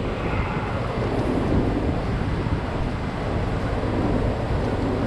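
Steady machinery drone of a running milking parlor, an even noise with no clear rhythm or sudden events.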